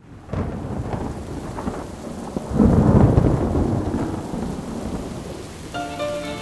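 Steady rain with a long roll of thunder that swells about two and a half seconds in and slowly dies away. Music with held notes begins near the end.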